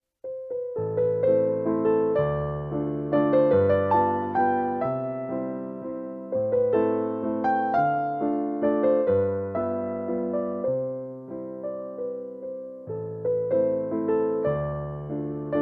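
Soft background music on electric piano: a slow melody over sustained bass notes that change every couple of seconds.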